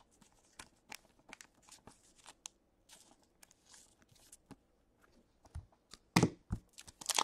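Faint, scattered clicks and rustles of hockey trading cards being handled and slipped into a plastic penny sleeve. About six seconds in there is a louder rustle, and near the end a denser crinkling starts, as of a foil card pack being handled.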